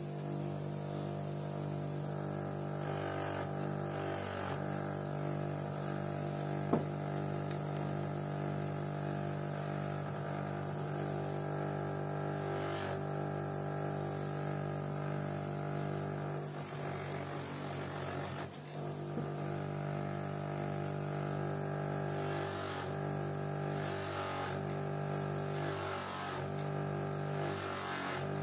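Wolf 8-inch bench grinder with a cotton buffing wheel running at speed: a steady motor hum. One sharp click about seven seconds in.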